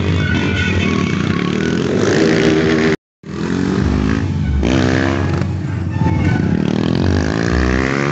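Motorcycle engines revving and accelerating as bikes ride past, the pitch rising and falling with each throttle change. The sound drops out completely for a moment about three seconds in.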